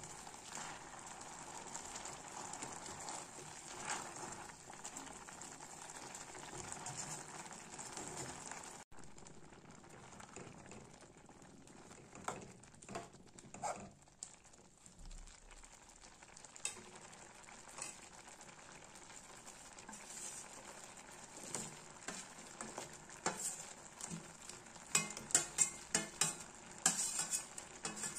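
Green chillies, tomatoes and garlic sizzling in oil in a wok while a spatula mashes and stirs them. The sizzle drops off abruptly about nine seconds in, then carries on quieter with scattered taps of the utensil against the pan and a cluster of sharp taps near the end.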